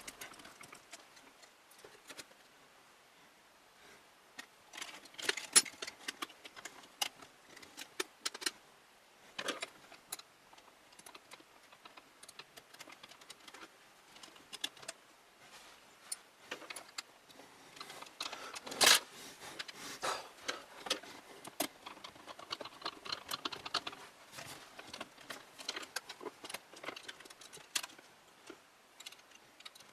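Irregular clicks, taps and light rattles of small hard computer parts being handled and fitted, with a sharp knock about nineteen seconds in and a quick run of ticks a few seconds later.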